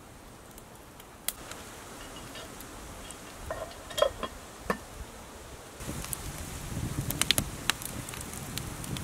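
Cast-iron Petromax dutch oven's lid and wire bail handle clanking a few times about four seconds in. From about six seconds, campfire coals crackle and pop around the pot.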